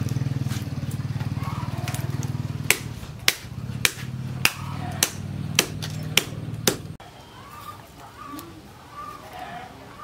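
Small hatchet chopping thin sticks of kindling on a wooden stump: about eight sharp chops roughly every half second, starting a few seconds in. A steady low engine drone runs underneath and cuts off abruptly about seven seconds in.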